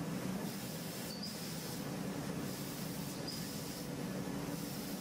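CNC machining center cold-forming M6 threads in aluminium with an Emuge InnoForm thread former: steady spindle and machine noise with a constant hiss. A short high chirp comes back about every two seconds.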